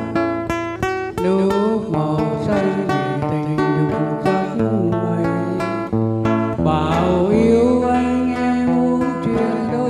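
A man singing a Vietnamese song into a microphone, his voice gliding between notes, accompanied by an acoustic guitar playing picked melodic lines. Long held low bass notes sound underneath.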